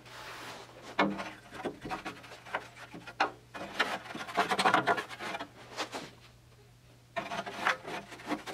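Irregular scrubbing and scraping against the sheet metal inside a car door as rust converter is worked onto surface rust, with a few small clicks. It pauses for about a second after six seconds, then starts again.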